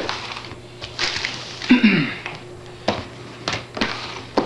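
Cardboard camcorder box handled on a wooden tabletop: rustling and scraping, then several sharp knocks in the second half as it is set down and shifted.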